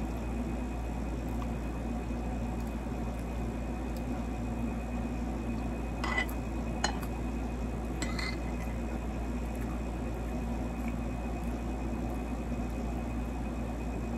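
Spoon and fork clinking on a plate: three short clinks about six, seven and eight seconds in, over a steady low background hum.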